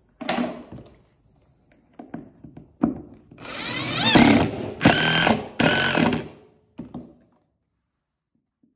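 Cordless impact driver driving a screw into a plywood subfloor in three short bursts, stopping and starting to leave the screw head standing at a set height. A knock and a few clicks come before it, and a single clack follows as the driver is set down.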